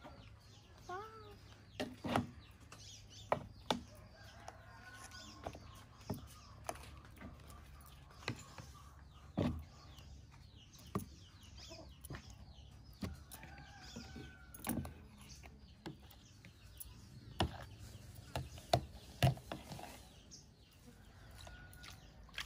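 Repeated sharp taps and knocks of a spoon and boiled eggs against a bowl and a plastic container as the eggs are moved into the sauce. Hens cluck now and then in the background.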